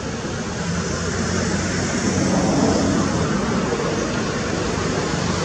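Steady low rumbling noise, swelling slightly over the first two seconds.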